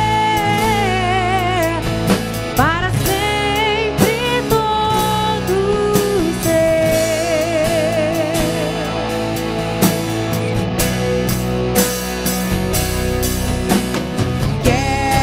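Worship band playing a rock-style praise song: drum kit and guitars under a lead melody line with vibrato and glides, no sung words.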